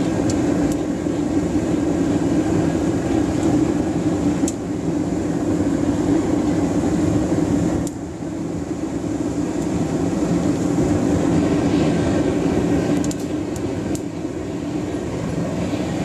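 Waste-oil burner with its electric blower firing a brick furnace: a steady, loud rumble of forced air and flame as the furnace heats up. The level dips briefly about halfway through, and there are a few faint ticks.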